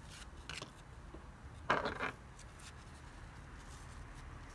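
A gloved hand working behind a car headlight housing with the bulb's plastic wiring connector: a couple of small plastic clicks, then a short scraping rasp a little under two seconds in.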